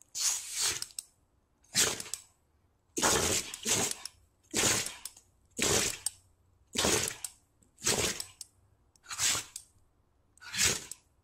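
A dog making a run of breathy, unpitched huffs, about one a second, each lasting around half a second.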